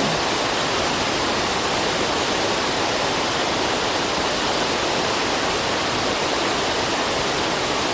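Waterfall: a steady, even rush of falling water, with no change or break.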